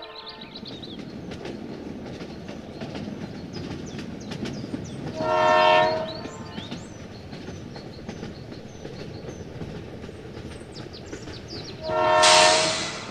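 A steady rumbling clatter of a vehicle running, with two short horn blasts, one about five seconds in and one near the end. A burst of hiss comes with the second blast.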